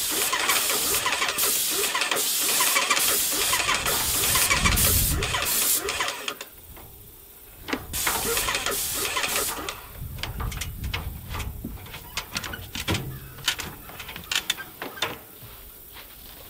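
Cheap electric airless paint sprayer spraying: a loud hiss with a fast pulsing from the pump. It stops about six seconds in, sprays again briefly about two seconds later, and then only scattered sharp ticks remain.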